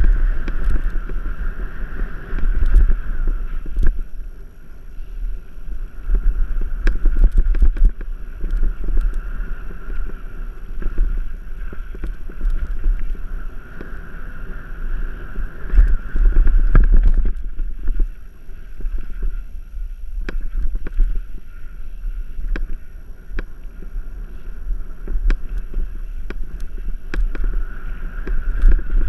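Mountain bike riding fast down dirt singletrack, with wind buffeting the microphone and frequent clicks and rattles from the bike over the bumps. A steady high buzz runs underneath and fades out for a few seconds past the middle.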